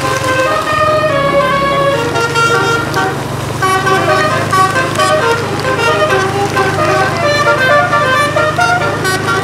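Bus 'telolet' basuri multi-tone air horn playing a fast tune of short stepping notes, over a steady low drone underneath.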